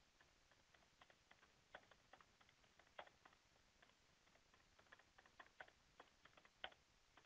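Faint computer keyboard typing: soft, irregular key clicks, several a second with short pauses between words.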